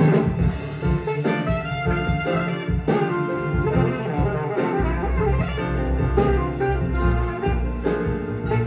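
Jazz with a lead alto saxophone, backed by bass and drums, playing through Graham Chartwell LS3/5a bookshelf speakers and picked up in the room.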